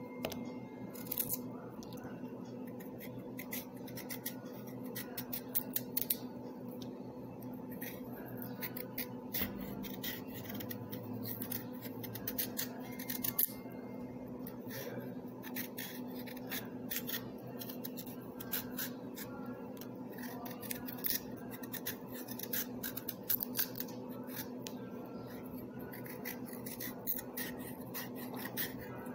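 A small blade scraping and shaving the skin off a raw carrot in quick, irregular strokes, over a steady low hum.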